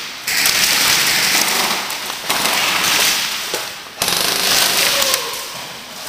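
Airsoft electric rifles firing long full-auto bursts, three strings of a second or two each with brief gaps between.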